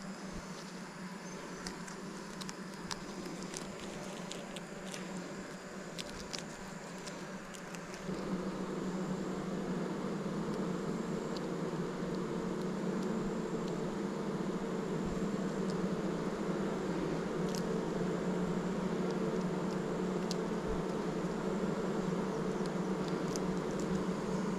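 Honeybees buzzing around an open hive: a steady hum that gets louder about eight seconds in.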